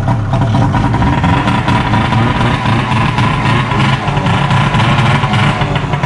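Straight-piped snowmobile engine running loud and steady with no muffler: a 1996 Arctic Cat Jag 440's fan-cooled two-stroke twin exhausting through a bare pipe.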